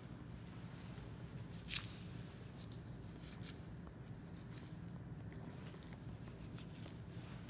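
Knife slicing through the fat of a slab of Japanese Black wagyu plate, with soft crackling and tearing as the fat is cut and peeled back, and one sharper click about two seconds in. A steady low hum runs underneath.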